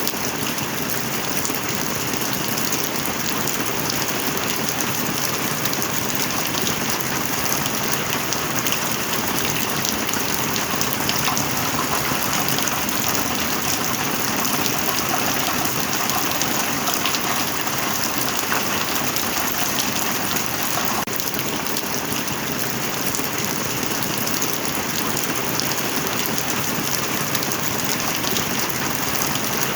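Steady heavy rain: a dense, even hiss full of fine drop impacts, holding at one level throughout.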